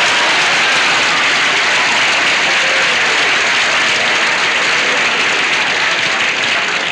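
Studio audience applauding, a long steady round that eases off slightly near the end.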